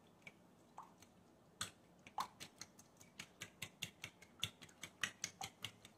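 A metal fork beating milk and eggs in a glass bowl, clicking against the glass: a few scattered clicks, then a quick, even run of about five a second from about a second and a half in.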